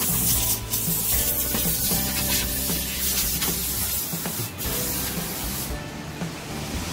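A steady hissing spray that thins out about six seconds in, with background music playing over it.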